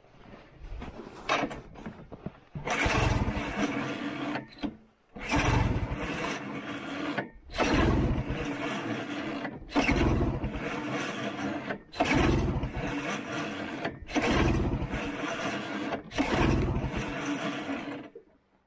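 1970 Ski-Doo Olympic 399 two-stroke twin being pull-started again and again, about seven recoil pulls two seconds apart, each a short burst of the engine turning over that dies away without running on. It won't stay running, which the owner traced to a failed ignition coil.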